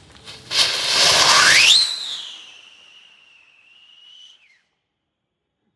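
Whistling rocket firework launching: a loud rushing hiss starts about half a second in, and the whistle climbs steeply in pitch as it lifts off. It then holds a high, slightly falling note that grows fainter and stops about four and a half seconds in.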